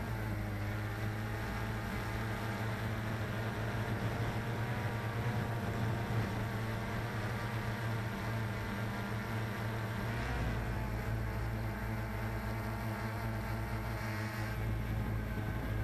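Cheerson CX-20 quadcopter's four brushless motors and propellers buzzing steadily in flight, the pitch shifting slightly about ten seconds in and again near the end.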